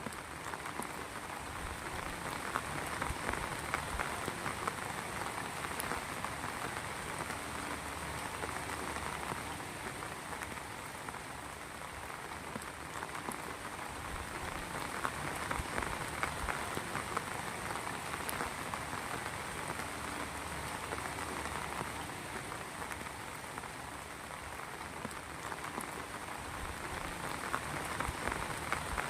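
Heavy rain falling steadily, a dense hiss of many fine drop impacts that swells and eases a little every few seconds.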